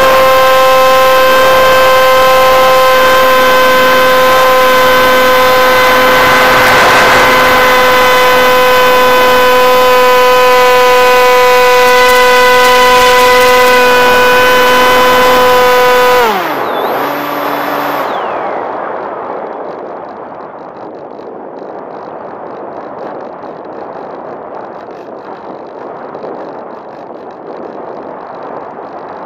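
Electric motor and pusher propeller of a Bixler v1.1 foam RC plane, heard from on board, running loud at a steady high pitch under constant throttle. About 16 seconds in the motor is cut and spins down with a falling pitch, leaving a quieter rush of air as the plane glides.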